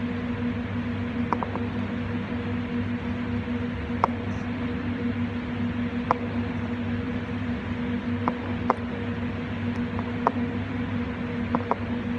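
Steady hum and hiss of running kitchen machinery, with faint short clicks every second or two at irregular intervals.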